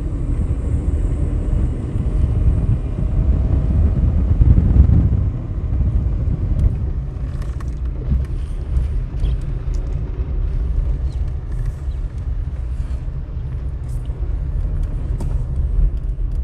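Car driving, a loud steady low road rumble heard from inside the vehicle. About five seconds in, the rumble changes as the car moves from tar onto gravel, and scattered small ticks of stones under the tyres follow.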